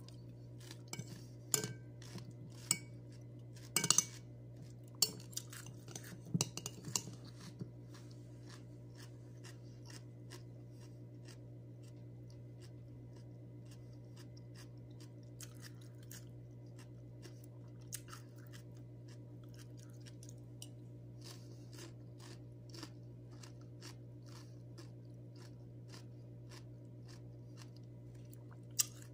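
Close-up chewing and crunching of raw cucumber slices, busiest in the first seven seconds and then settling into sparser soft mouth clicks, over a steady low hum. A single sharp click near the end as the metal spoon meets the foil tray.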